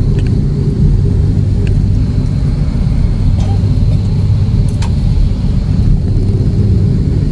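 Jet airliner heard from inside the cabin on its takeoff roll: a loud, steady rumble of engines and wheels on the runway, with a faint high whine above it and a few light clicks.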